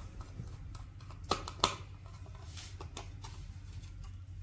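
A few light clicks and rustles of small plastic parts and cable being handled, two sharper clicks close together a little over a second in, over a low steady hum.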